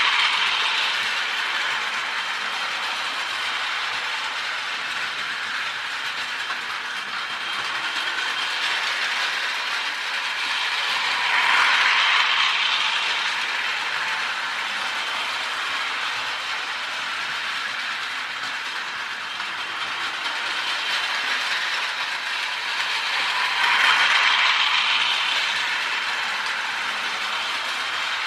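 A toy electric train running round its plastic track, its motor and gears giving a steady whir that swells and fades about every twelve seconds.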